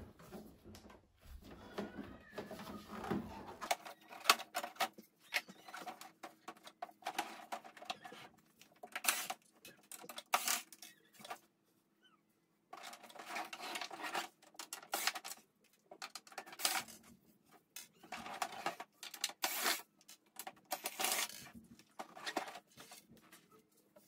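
Scattered light clicks, knocks and clinks of screws being backed out of a portable air conditioner's plastic outer shell and set down on a table.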